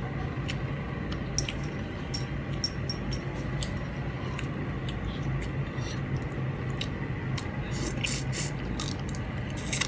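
Someone eating rice and prawn curry by hand: chewing, with a scatter of small wet mouth clicks and smacks, over a steady low hum.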